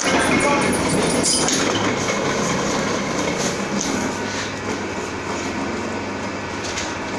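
Simple paper-cutting machine running, a steady mechanical rattle that fades slightly toward the end.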